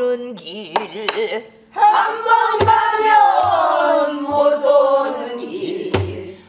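A woman sings a Korean Namdo folk song refrain in a throaty traditional voice with wide, wavering vibrato. She accompanies herself on a buk barrel drum: a few stick strokes, some landing as low thumps on the drumhead. The singing breaks briefly about one and a half seconds in, then carries on, fading near the end.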